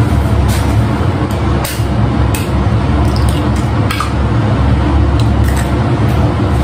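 Eggs tapped open with a spoon and their shells pulled apart over a bowl: a few short, sharp cracks and the wet slip of egg falling in. Under it a steady low rumble runs throughout and is the loudest thing.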